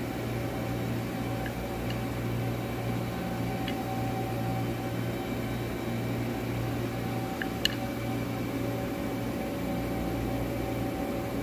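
Steady hum of running workshop machinery, with a few faint ticks and one sharp click about seven and a half seconds in.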